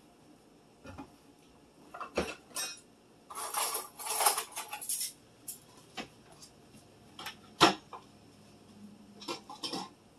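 Dishes and metal cutlery clinking and rattling as they are taken from a dish drain and put away. A scattered run of separate clinks, with a longer rattle of cutlery about three to five seconds in and one sharper clink about three-quarters of the way through.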